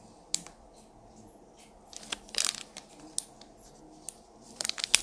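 Clear plastic bags crinkling as they are handled: a few soft, scattered crinkles, a louder one about halfway through, then continuous crinkling near the end.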